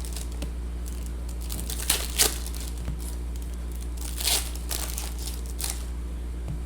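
Foil trading-card pack wrappers being torn open and crinkled, in a few short rustling bursts over a steady low hum.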